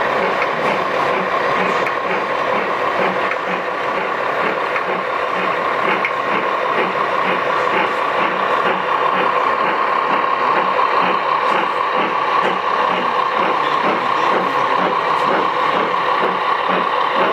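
Gauge 1 model trains running: a regular chuffing beat from the model steam locomotive over a steady mechanical hum and the rattle of running gear and wheels on the track.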